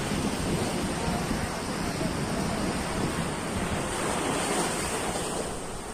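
Sea surf breaking and washing up a sandy beach, a steady rushing wash, with wind buffeting the microphone.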